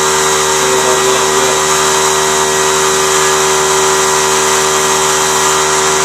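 Steady, loud machine hum with several fixed tones, unchanging throughout.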